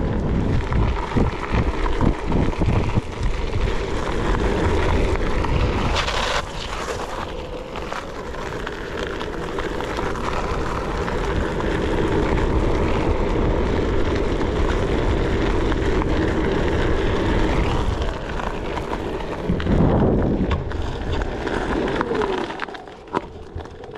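Onewheel electric board rolling over a gravel trail: a steady low rumble of the tyre on gravel and wind on the microphone, with a steady hum from the hub motor. It swells briefly about twenty seconds in.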